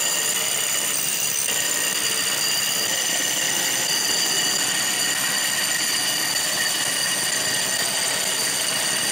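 Rotary hammer boring a 4-1/4-inch hole saw through a brick wall, running steadily under load. It makes a dense grinding noise with several high, steady ringing tones over it.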